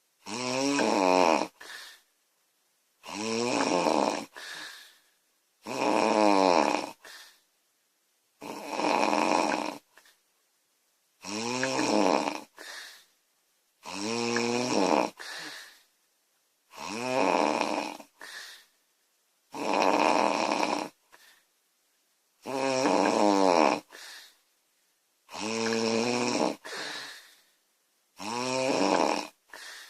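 A girl snoring loudly and steadily, about one snore every three seconds. Each snore is a pitched rasp that falls in pitch over about a second and a half, followed by a short, softer breath.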